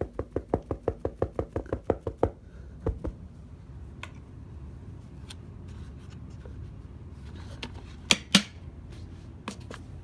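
A quick, even run of about fifteen light knocks, some seven a second, lasting about two seconds, then a pair of knocks and later a few sharp clicks near the end.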